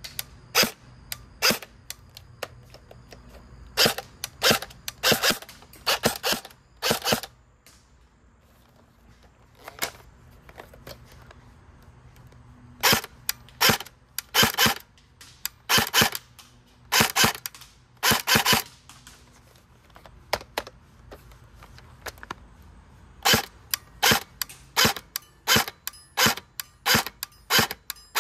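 Airsoft SCAR-L electric gun firing single semi-auto shots, each a short crack of the gearbox cycling, in irregular strings with pauses and a quicker run of about two or three shots a second near the end. It runs its stock motor on a 7.4 V LiPo, which the owner finds sluggish.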